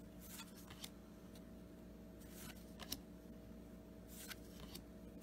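Faint handling of cardboard trading cards being moved through a stack one at a time: a few soft, scattered ticks and slides, one slightly sharper about three seconds in, over a steady low hum.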